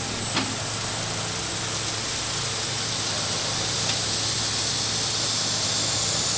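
Steady hiss of chicken skewers sizzling on the grills, with a few faint pops over a low steady hum.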